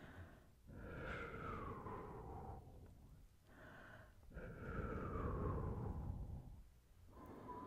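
Slow, breathy exhales blown close to the microphone, ASMR-style: two long ones, each with a faint tone sliding down in pitch, and a third starting near the end.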